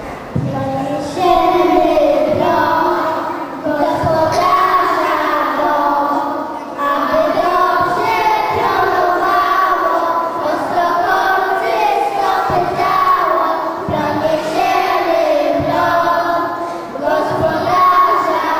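A group of children singing a song together into microphones.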